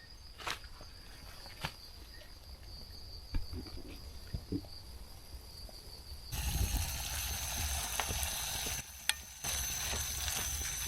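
Insects calling with a steady high trill, with a few light clicks. About six seconds in the sound switches abruptly to food sizzling in a frying pan on a methylated spirit stove, insects still trilling above it.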